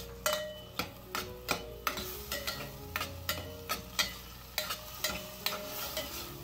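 Steel spoon knocking and scraping against the inside of a stainless steel pressure cooker while stirring chopped tomato into frying onion masala, about two to three knocks a second, over a light sizzle.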